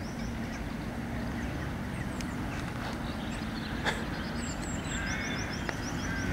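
Outdoor pond-side ambience: small birds singing series of short, high repeated notes over a steady low rumble. A brief call sounds about five seconds in, and there is a single sharp click just before the four-second mark.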